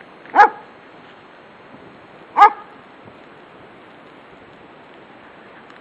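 German Shepherd barking at a passer-by: two single loud barks about two seconds apart, then a pause.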